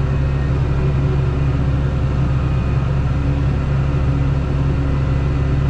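Heavy farm engine running at a steady speed with a deep, even hum.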